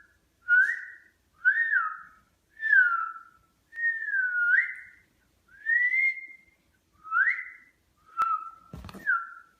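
A series of about eight short whistled notes, each gliding up or down in pitch or dipping and rising, with pauses between them; a sharp click comes near the end.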